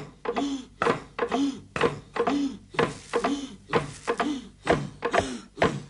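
Hollow wooden log drums struck in a steady beat, about two strokes a second. Each stroke gives a sharp knock followed by a short low hollow tone that rises and falls in pitch.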